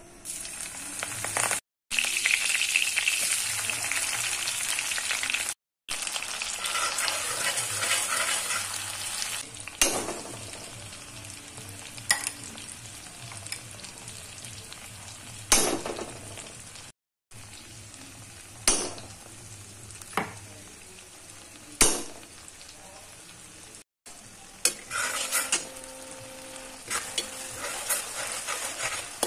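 Chopped tomatoes and green chillies sizzling in hot mustard oil in a kadai, loudest in the first few seconds after they go in. A metal spatula scrapes and taps sharply against the pan several times as the mixture is stirred.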